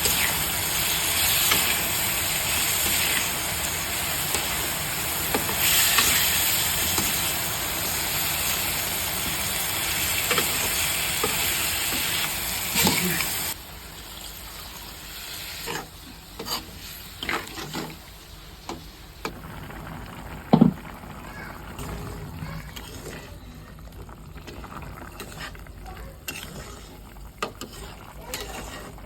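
Chicken curry frying in a pan with a steady sizzle while it is stirred. About halfway through, the loud sizzle drops off suddenly, leaving a quieter background with scattered clinks and knocks.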